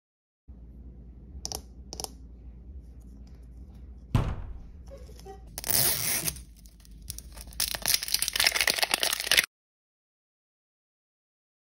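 Crinkly plastic wrapping of an L.O.L. Surprise ball being handled and torn open, a dense crackle for about four seconds that cuts off suddenly. Before it come two light clicks and a sharper knock, from the ball being handled.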